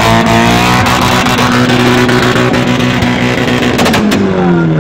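A car engine revved hard through a loud aftermarket exhaust and held at high revs, then the revs fall away near the end with a few sharp cracks.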